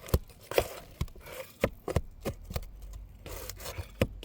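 A metal pry tool knocking and scraping as it is worked under an asphalt roof shingle to lever out a nail. There are about a dozen sharp, irregular clicks with light scraping between them.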